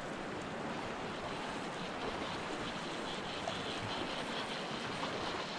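Steady rushing of a fast-flowing river current.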